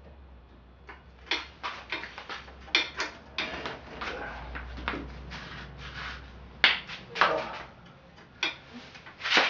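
Metal tools clanking and scraping against a bicycle's seized cartridge bottom bracket as a splined bottom bracket tool and wrench are worked to loosen it, in irregular knocks with a few sharp ones near the end; the bottom bracket is crusted in place and won't turn.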